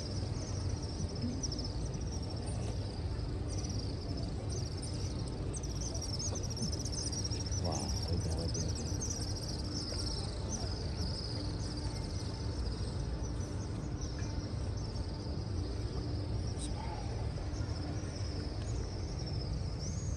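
Dense high-pitched chirping, many short falling chirps following one another throughout, over a steady low rumble.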